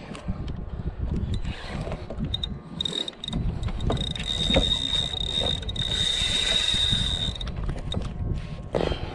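Spinning reel being cranked against a hooked amberjack, with a steady high whine from the reel from about two and a half seconds in until near the end, and a few small mechanical clicks.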